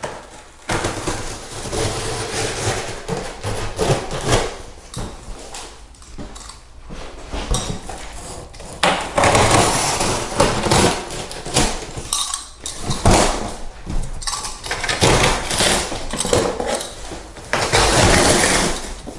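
Knife slicing through corrugated cardboard along the corners of a large box, in repeated scraping strokes of varying length, with the cardboard flexing and rustling as the sides are pulled open and folded down.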